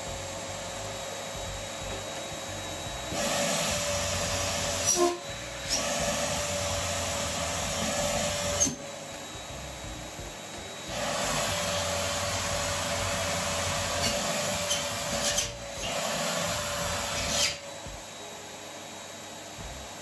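Canister vacuum cleaner running steadily. Its rush of air swells louder for two stretches of five or six seconds and drops back as a balloon is held to the nozzle and taken off it, with a few short sharp sounds where the rush changes.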